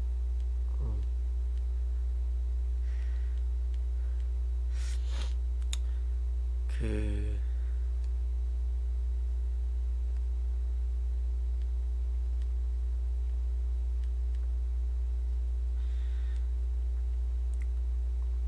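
Steady low electrical hum with fainter higher hum tones above it, in the microphone signal. A few brief soft noises come and go about one, five and seven seconds in.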